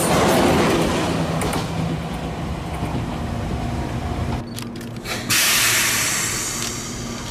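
Electric commuter train rolling past on the track, its running noise fading as it moves away. After a break, a loud hiss of air starts about five seconds in from an electric train standing at a platform and tails off over the next two seconds, over a low steady hum.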